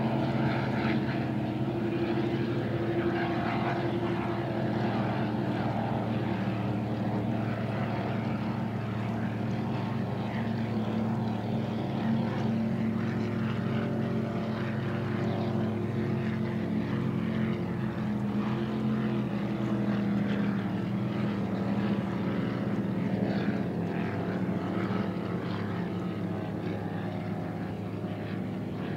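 Steady drone of several engines running together, their tones holding with only slight drift, easing a little near the end.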